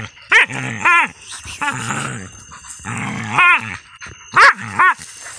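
Hunting dog growling low as it worries a captured six-banded armadillo, broken by five short high-pitched barks, two near the start and three in the second half.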